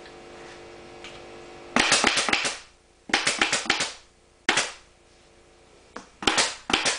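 Pneumatic upholstery staple gun driving staples through a cambric dust cover into a slip seat's frame: two quick runs of several sharp shots a couple of seconds in, then single shots spaced out. A low steady hum is heard in the first couple of seconds.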